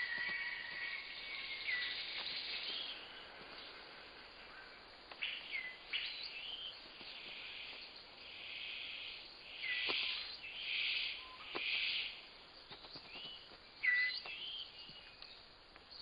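Rainforest ambience: short bird chirps that drop quickly in pitch, a few faint clicks, and a buzzing sound in four pulses about a second apart midway. Steady music tones fade out in the first couple of seconds.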